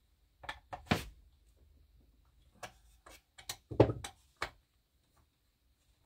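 Knocks and clicks of a hand tool and parts against a chainsaw's plastic and metal case as a part is fitted and screwed on. There is a quick run of knocks from about half a second to a second in, then another from about two and a half to four and a half seconds in, the loudest near four seconds.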